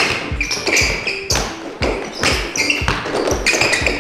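Basketball dribbled hard on an indoor court floor, about two bounces a second, with short sneaker squeaks as the players cut, over background music.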